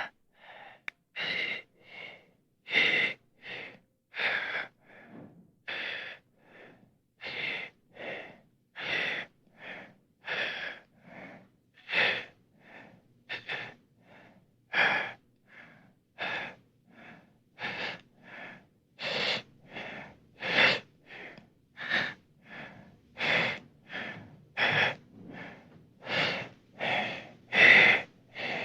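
A person's laboured, gasping dying breaths, acted as a horror sound effect: short, rasping in-and-out breaths in quick alternation, a louder one about every second and a half, keeping up without a pause.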